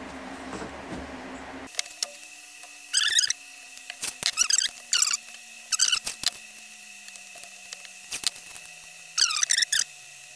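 3M blue painter's tape being pulled off its roll in short rips, about five pulls, the first about three seconds in and the last near the end.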